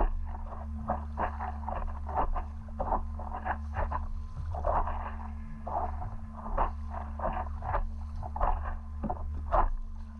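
Paddle strokes and water splashing against an inflatable paddleboard in quick irregular bursts, over a steady low hum.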